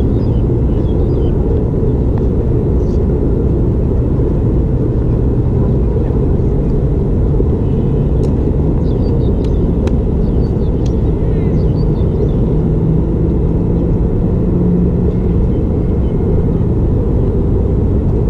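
Steady low rumble of traffic on an elevated expressway, with one vehicle's engine drone rising slightly in pitch in the second half.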